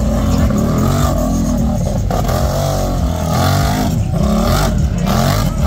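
Big-tire ATV engine revving hard under full throttle, its pitch rising and falling again and again as it drives through dirt.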